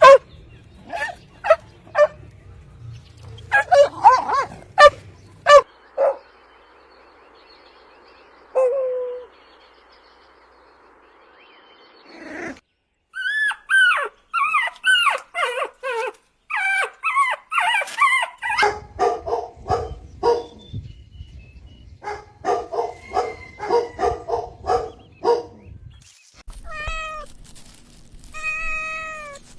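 Puppies yipping and whimpering: a string of short high-pitched calls, many sliding in pitch, with a quieter stretch partway through and a few longer drawn-out whines near the end.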